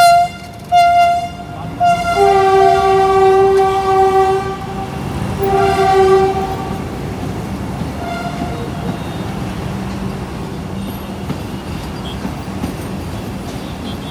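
Train horn sounding: two short single-note blasts, then two long two-note blasts, with the low rumble of the train running beneath. A last faint blast comes about eight seconds in, after which only the rolling rumble remains.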